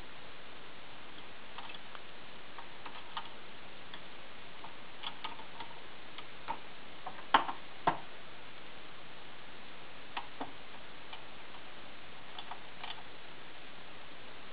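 Einhell BT-ML 300 mini lathe at work on a brass rod: a steady hiss with scattered light metallic clicks and ticks, the two sharpest about half a second apart a little past the middle.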